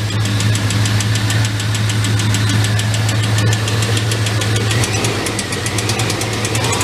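Engine of a GMT400 Chevy/GMC C1500 pickup running with a rapid, even ticking over its steady hum. This is a lifter noise, which the owner puts down to a worn cam lobe and lifter on the number 3 intake valve after long cranking on stale fuel.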